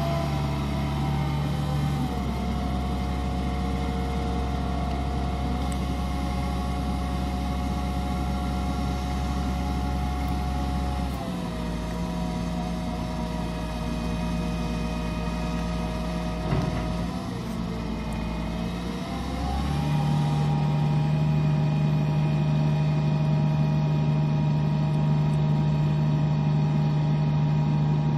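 Caterpillar 3126 inline-six turbo diesel running at steady speeds, its pitch stepping down about eleven seconds in. About twenty seconds in it rises again and holds at a higher, louder speed.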